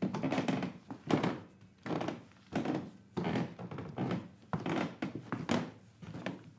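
Wooden stairs creaking and thudding under a string of steps, a separate creak every half second to a second.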